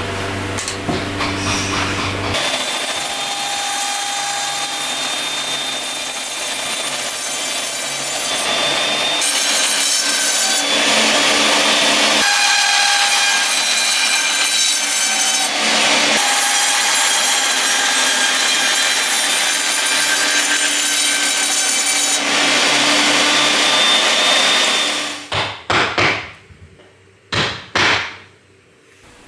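Band saw running, its blade cutting through wooden blocks in a series of cuts with brief pauses between them. A steady motor hum leads in for the first two seconds or so. The sawing stops about four seconds before the end, leaving a few short knocks and then quiet.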